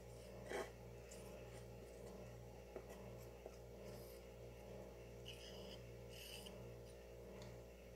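Flat paintbrush stroking black acrylic basecoat across a small canvas, faint scratchy brushing in short strokes, the loudest about half a second in, over a steady low hum.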